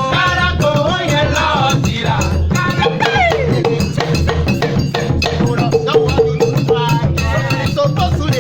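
Afrobeats song playing: a pulsing bass beat under shaker and cowbell-like hand percussion, with sung vocal lines over it.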